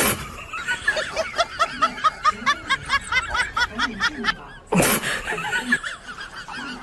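A person laughing in a fast run of short pitched 'ha' notes, about seven a second, that stops after about three seconds. About five seconds in there is a brief loud rush of noise.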